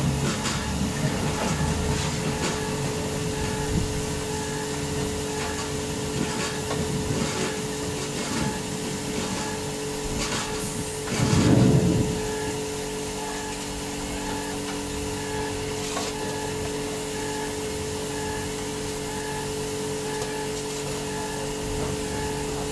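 Mobile fruit press machinery running with a steady hum and a regular ticking. A wooden-handled shovel scrapes fruit pomace in a plastic tub, mostly in the first few seconds. About halfway through there is one louder low rumble lasting about a second.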